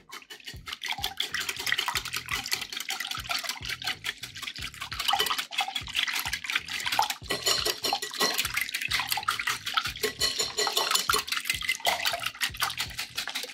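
Wire whisk beating runny waffle batter in a glass bowl: rapid, steady wet sloshing strokes.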